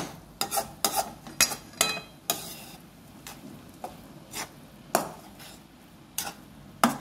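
A metal spatula scraping and knocking against a metal kadai as poha (flattened rice) is stirred and tossed: about a dozen irregular scrapes and clinks, a few of them ringing briefly.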